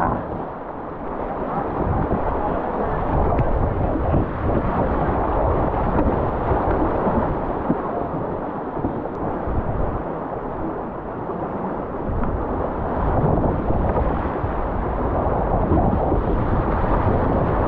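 Whitewater rapids rushing around a kayak: a loud, steady roar of moving water.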